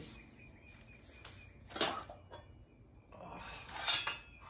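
Long wooden-handled yard tools being picked up and handled: a sharp knock about two seconds in, then a longer clatter about a second later, loudest near the end.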